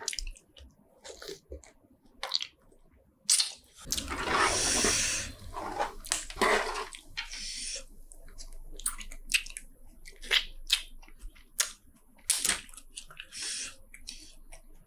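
Close-up eating of spicy seafood: wet chewing and crunching with many sharp clicks and crackles, and one louder noisy burst lasting about a second about four seconds in.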